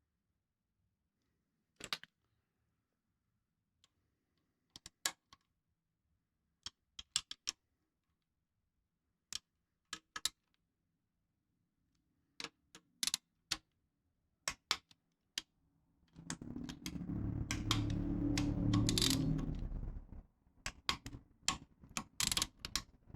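Scattered sharp clicks and taps of hand tools and metal engine parts being handled, with a few seconds of louder, rough handling noise about two-thirds of the way through.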